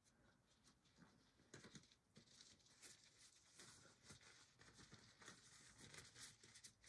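Near silence, with faint scattered rustles and soft pats from rubber-gloved hands spreading and pressing down loose moss substrate in a glass enclosure.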